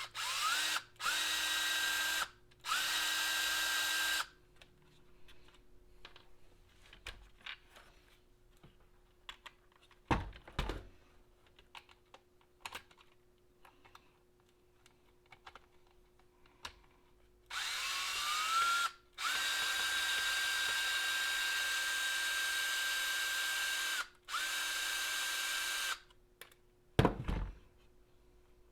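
Small cordless electric screwdriver spinning up and running in short bursts while driving screws out of an RC car's chassis parts: three quick runs at the start, then three more later on, one lasting about five seconds. Light clicks of small parts come between, with a dull thump about a third of the way in and a louder one near the end.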